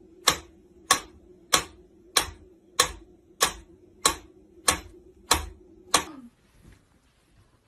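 Mechanical pendulum metronome ticking at a steady beat, about three ticks every two seconds. Ten ticks in all, stopping about six seconds in, over a faint steady low hum.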